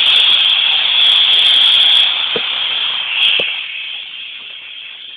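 Harsh hiss-like noise from a high-gain electric guitar amplifier, loud for about two seconds and then fading away, with two light knocks near the middle.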